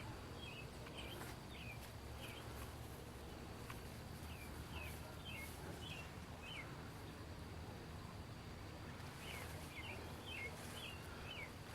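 A small bird calling in short, high chirps, in three bouts near the start, in the middle and near the end, faint over a steady low background rumble.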